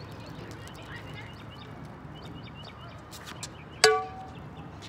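A tennis ball striking a frying pan swung as a racquet: one sharp metallic clang about four seconds in, with the pan ringing briefly at several pitches before dying away.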